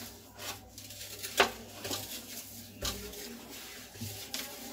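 Hands kneading and pressing chhena with maida against a steel plate, with soft rubbing and irregular sharp clicks and knocks, the sharpest about one and a half seconds in.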